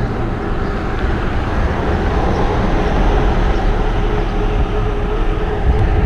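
Wind buffeting a bike-mounted action camera's microphone, mixed with the rumble of mountain bike tyres rolling at speed: a loud, steady noise, heaviest at the low end.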